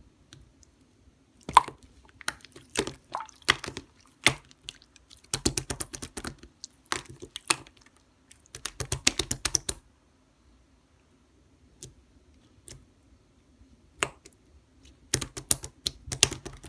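Slime being squeezed and worked by hand, giving runs of quick crackly clicks and small pops, in several bursts with quieter pauses between them.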